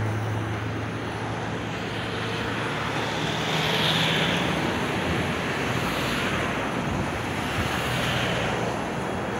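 NSW 59 class 2-8-2 steam locomotive 5917 working its train toward the bridge, heard as a steady distant rushing noise that swells about every two seconds from a few seconds in.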